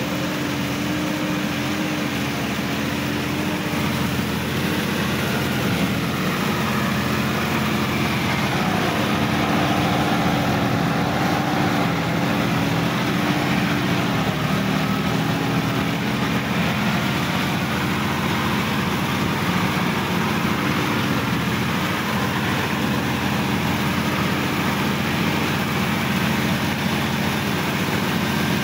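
Sonalika DI-50 RX diesel tractor engine running steadily under load as it drags a mud-caked implement through flooded field mud, its pitch dipping slightly now and then.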